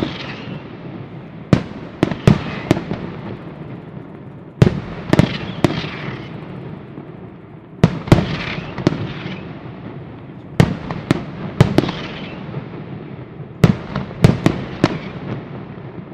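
Daytime Italian fireworks battery in the Sanseverese style: salutes bursting in aerial bangs, grouped three or four at a time with a group about every three seconds, each followed by a rumbling echo.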